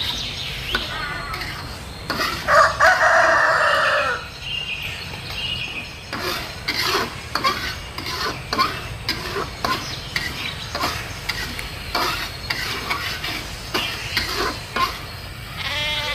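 A rooster crows once about two and a half seconds in, a loud pitched call lasting under two seconds and the loudest sound here. From about six seconds on, a metal spatula scrapes and taps against a steel wok in repeated short strokes, stirring chili paste.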